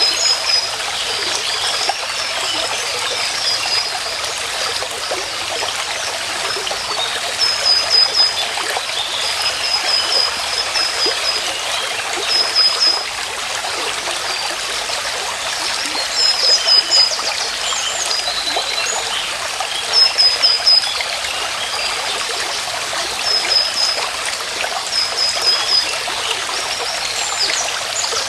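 Stream water trickling and running steadily, with a bird repeating a short, high call every few seconds.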